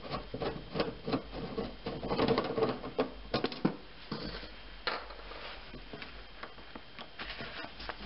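Hand screwdriver backing Phillips sheet-metal screws out of a sheet-metal access panel: an irregular run of small clicks, scrapes and rubs of metal on metal.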